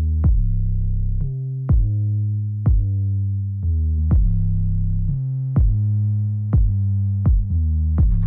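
Background electronic music: a drum-machine hit about once a second over sustained low synthesizer bass notes.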